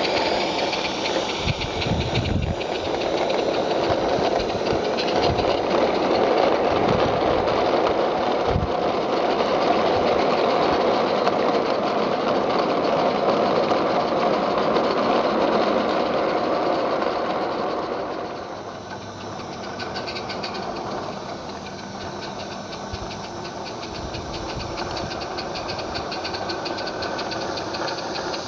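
Small live-steam garden-railway locomotive hauling a long train of vans: a steady rattling run of wheels on the rails, with steam exhaust. It drops in level about two-thirds of the way through.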